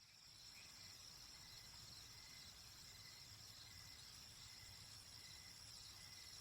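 Faint outdoor nature ambience: a steady, continuous high-pitched chorus of calling animals, with a low rumble underneath.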